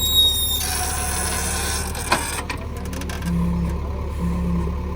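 Diesel engine of a JCB 3DX backhoe loader running steadily, with a sharp knock about two seconds in.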